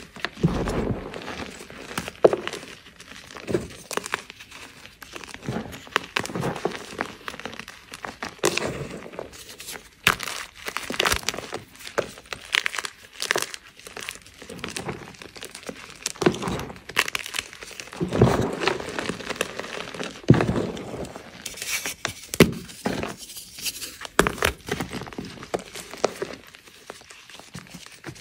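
Hands crushing and squeezing fresh blocks of gym chalk, a continuous run of irregular crunches and crumbling crackles.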